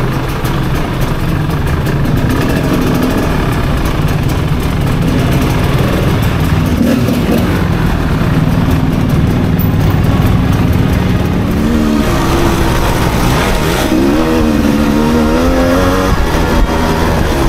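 Rieju MR300 two-stroke enduro motorcycle engine running under load. In the last few seconds the throttle is worked, and the engine note rises and falls several times.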